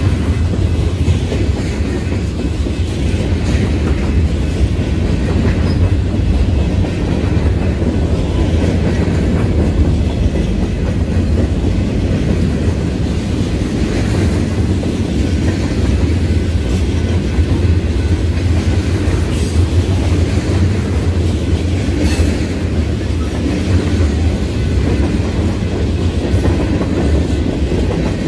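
Freight train's covered hopper and tank cars rolling past, a steady rumble with occasional wheel clicks over the rail joints.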